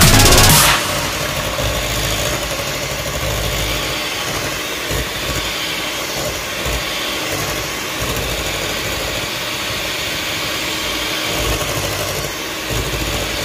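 Farberware electric hand mixer running steadily, its beaters whipping chilled heavy cream in a stainless steel bowl. A burst of electronic music cuts off about half a second in.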